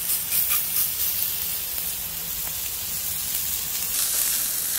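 Slices of Sendai wagyu rib meat sizzling on a hot tabletop grill plate over a portable gas burner: a steady hiss of searing fat, with a few brief crackles in the first second as the meat goes down.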